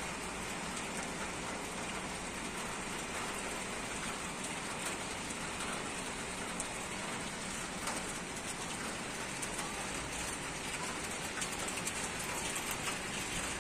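Heavy rain pouring down, a dense, steady hiss with scattered sharp taps of drops striking close by.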